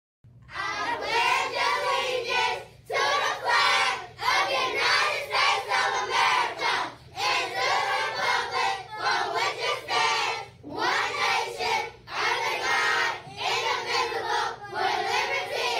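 A class of children reciting the Pledge of Allegiance together in unison, many voices speaking in short phrases with brief pauses between them.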